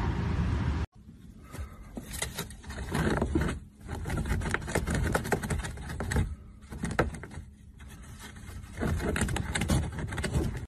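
Rabbit scrabbling in the corner of a wooden floor: rapid scratchy scrapes and clicks of claws on wood, in bursts with short pauses. It is preceded by about a second of wind blowing on the microphone, which cuts off suddenly.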